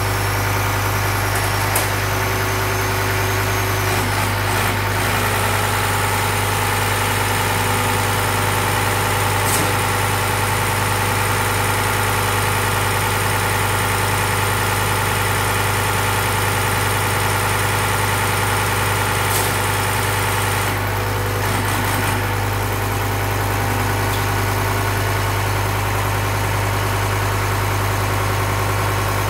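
Diesel fuel injection pump test bench running steadily: the bench's drive motor hums and the injection pump turns under it while the pump is being set. The tone shifts briefly about five seconds in and again around twenty-one seconds in.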